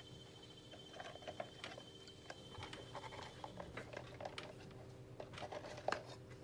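A small scoring tool scratching and clicking against a wet clay spout, being scored for attaching: a run of faint, irregular scrapes and ticks over a steady low room hum.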